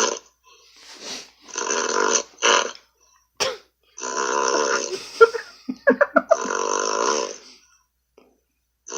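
A man snoring loudly over a Skype call: a run of long snores with a quick fluttering rattle in the middle, and one sharp click about three and a half seconds in.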